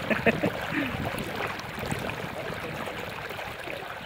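Steady rushing outdoor background noise, with a few short voice-like sounds and clicks in the first second.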